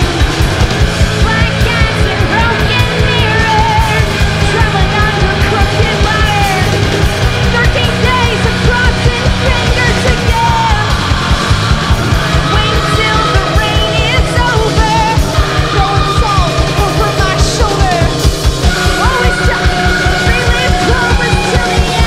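Live rock band playing loudly, a fast, even beat driving under guitars and yelled vocals.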